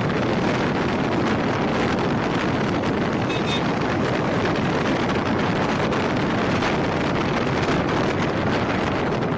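Steady wind rush on the microphone of a moving motorcycle, mixed with road noise.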